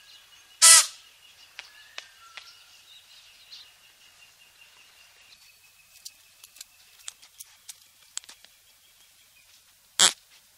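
Birds calling outdoors against a faint steady high twittering, with scattered soft ticks. Two loud, sharp calls stand out, one about a second in and one near the end.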